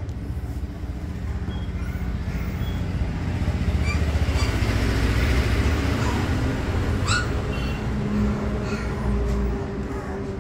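A Labrador puppy gives one sharp, high squeak about seven seconds in, over a steady low rumble that swells in the middle.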